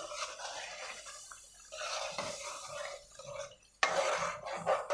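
A long metal spoon stirring thick, wet chicken curry with yogurt in an aluminium karahi: irregular wet stirring sounds with the spoon scraping against the pot, pausing briefly and starting again sharply about four seconds in.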